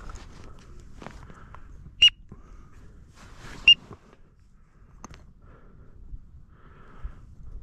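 Two short, loud, high-pitched whistles about a second and a half apart, over faint scattered calls of ducks on the marsh.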